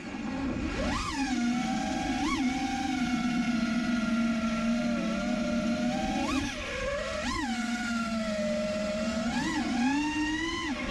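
FPV freestyle quadcopter's brushless motors and propellers whining in flight. The pitch jumps up sharply in short throttle punches several times and settles back between them.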